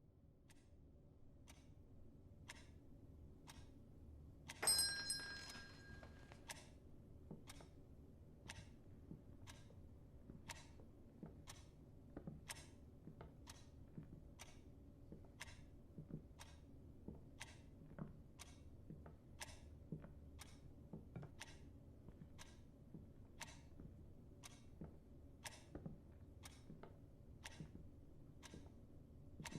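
Faint, steady ticking, evenly spaced at roughly one tick a second, over a low hum, with one short metallic ring about five seconds in.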